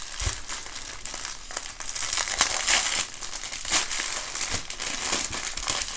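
Clear plastic bags crinkling and rustling as hands handle a bundle of small zip bags of diamond-painting drills, with irregular crackles that are loudest in the middle.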